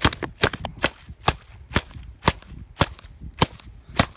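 Plastic water bottle knocking down hard on a thin sheet of pond ice, about two sharp cracks a second, nine in all, as the ice starts to split: testing how thick the ice is.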